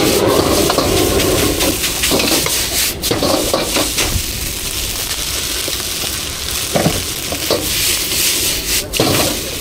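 Food sizzling in a hot pan as it is stir-fried, with the steady hiss of frying and occasional scrapes and knocks of the utensil.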